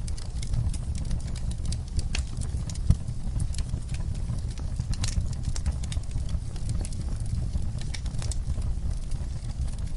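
Wood fire crackling: irregular sharp pops and snaps over a steady low rumble of burning flames, with one louder pop about three seconds in.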